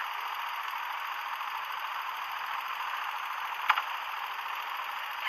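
Steady hiss with a single short click about three and a half seconds in.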